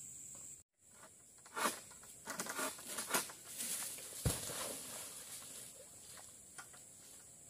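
Rustling, scraping and a few sharp knocks as an oil palm harvester works a long-pole sickle (egrek) up among the palm fronds, the loudest a knock with a low thump about four seconds in. A faint steady high-pitched whine runs underneath, and the sound drops out briefly just before the first second.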